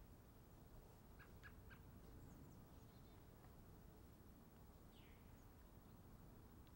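Near silence: faint steady background noise with a few short, faint high chirps about a second in and a single faint falling chirp later.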